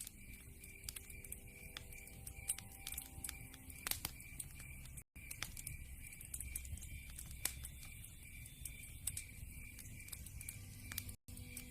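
Wood fire crackling: burning logs give irregular small pops and snaps over a low hiss. The sound cuts out for an instant about five seconds in and again near the end.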